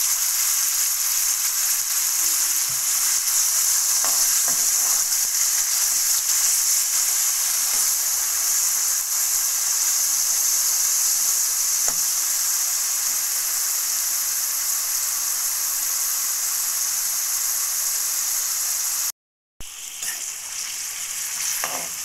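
Sliced bitter gourd frying in hot oil in a metal wok: a steady sizzle, with a few light scrapes of a slotted spoon stirring the pieces. The sound cuts out briefly near the end.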